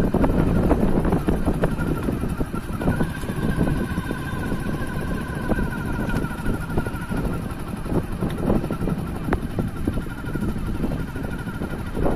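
A motor vehicle driving along a road, heard from on board: a steady engine and road rumble with wind noise. A thin, wavering high tone joins about three seconds in.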